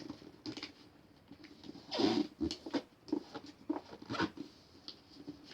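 A sheet of A4 paper rustling and crinkling as it is folded and creased by hand, in short irregular strokes, the loudest about two seconds in.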